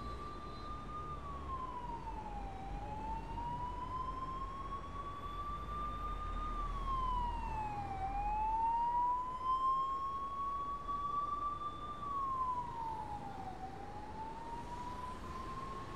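A siren wailing: its pitch climbs slowly for about four seconds, then drops quickly, over and over, with a low rumble underneath in the first half.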